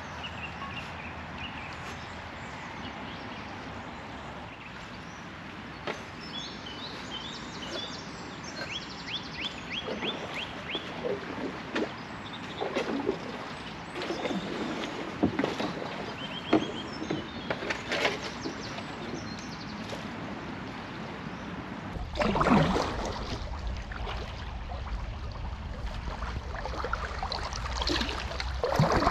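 Steady flow of a small river with birds chirping, including a quick run of repeated chirps early on, and the splashing of kayak paddle strokes in the water. Near the end a low rumble comes in with louder splashes close by.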